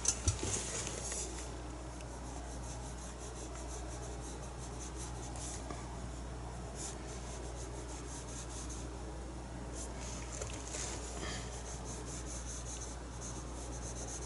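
Paintbrush stroking and dabbing acrylic paint on a canvas: a soft, repeated scratchy rubbing, with a few sharp clicks right at the start, over a low steady hum.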